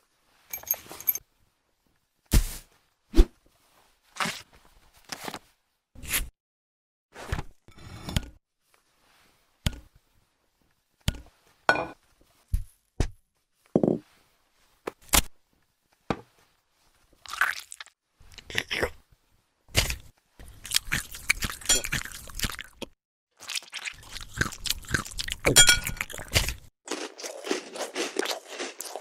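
A string of separate short clicks and clinks about a second apart, small hard objects like steel nails being set down and tapped together. From about 20 seconds in, a dense run of crunching, like hard food being bitten and chewed.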